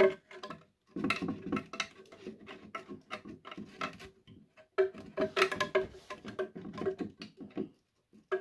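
A translucent model-aircraft cowl being worked by hand onto the nose, scraping and knocking against the wooden baffles around the engine: irregular rubbing and clicking in two stretches, about a second in and again near five seconds.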